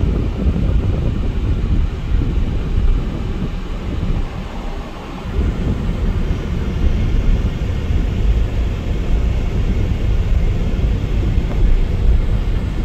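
Low rumble of a car driving through town traffic, with wind buffeting the microphone; the rumble eases briefly about four seconds in.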